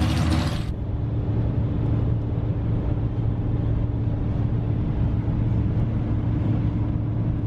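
Steady road and engine noise inside a pickup truck cab at highway speed: a constant low hum over tyre noise on wet pavement. A short burst of different, brighter noise comes before it, just under a second in.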